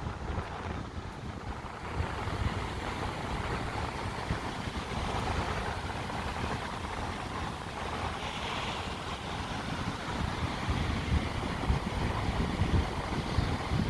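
Wind buffeting the microphone in uneven gusts over a steady rushing noise.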